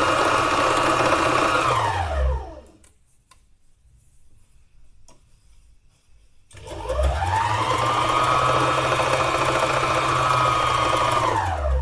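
Electric needle-felting machine running, its needles punching wool into felt. The motor winds down and stops about two seconds in, is quiet for about four seconds, then winds back up around seven seconds in and runs steadily until it slows to a stop at the end.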